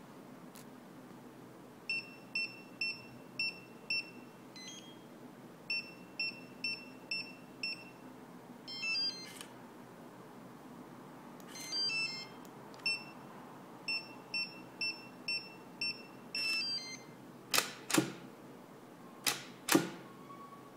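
Digital lever lock's keypad beeping as a code is keyed in: runs of about five short high beeps, each followed by a brief chime of several tones from the lock, as the grand master password is entered and confirmed. Near the end come four loud sharp clicks, the loudest sounds.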